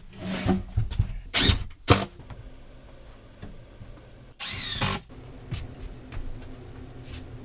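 Sharp scrapes and knocks as a plywood cabinet is pushed and handled, then a cordless drill runs for about half a second, its whine bending in pitch as it drives a screw.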